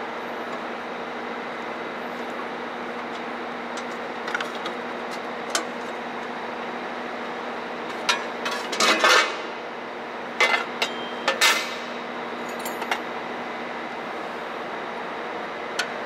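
Deutz three-cylinder diesel engine running at a steady idle, with a metal spanner clinking against its fittings in several short bursts, the loudest a little past halfway.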